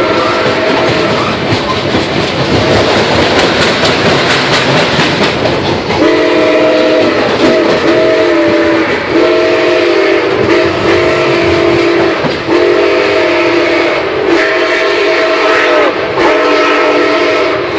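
Nickel Plate Road 765's steam whistle, on a 2-8-4 Berkshire steam locomotive, sounding a series of long and short blasts. It stops about a second in, leaving the rush and clatter of the moving train, then blows again repeatedly from about six seconds in, heard from a passenger car's vestibule.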